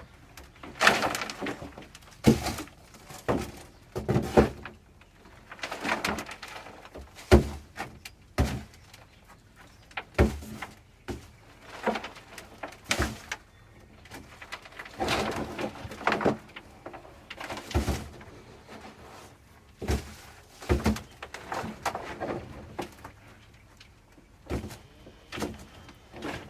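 Freshly dug potatoes being picked out of loose compost and dropped into a basket: irregular knocks and thuds with soil rustling in between, roughly one every second.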